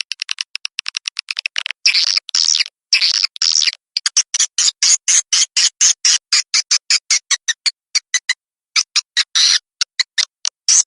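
Swiftlet calling-sound recording, the kind played to lure edible-nest swiftlets: rapid trains of short dry clicks alternating with longer buzzy twittering chirps, repeating without pause.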